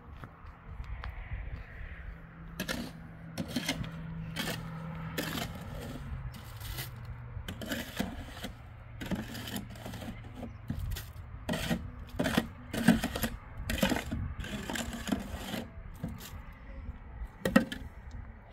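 Irregular knocks and clatter of building work, one or two a second, over a faint steady low hum.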